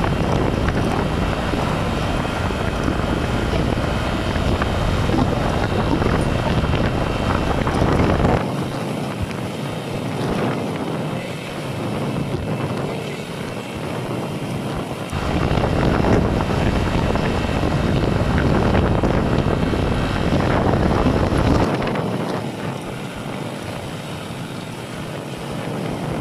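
Wind rushing over the microphone of a phone mounted on a moving motorcycle, with the motorcycle's engine and road noise beneath it. The deep rumble drops away twice for several seconds.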